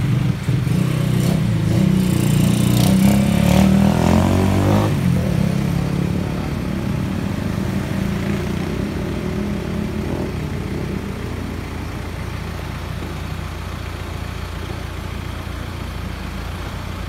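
Boom truck's engine running steadily to drive the aerial bucket's hydraulics. Over the first five seconds a louder engine revs up, rising in pitch, then fades.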